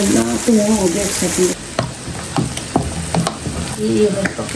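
Cooking pots on a gas stove being stirred: a steady sizzle and bubbling, and from about a second and a half in, a metal ladle knocking and scraping against a steel pan about three to four times a second.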